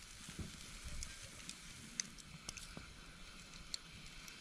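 Tongs clicking now and then against a portable propane grill's cast-iron griddle and a plate as the last grilled food is lifted off, over a faint steady hiss from the hot grill.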